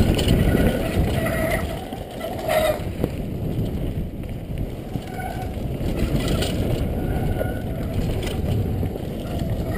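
Downhill mountain bike descending a dry, dusty dirt trail at speed: tyres rumbling over the dirt and wind rushing over a helmet-mounted camera.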